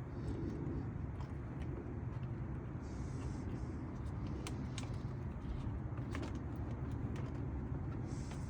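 Steady low background rumble, with a few faint clicks and light rustling of hands handling plastic intake parts.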